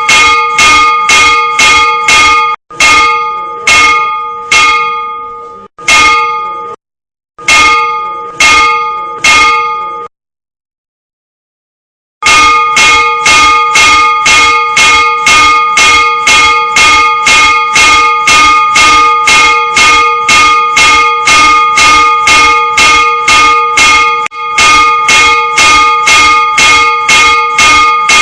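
A single church bell struck by an electromechanical automatic ringer, in fast, even strokes about twice a second, each stroke ringing on into the next. The strokes break off briefly several times in the first ten seconds, stop for about two seconds, then carry on steadily.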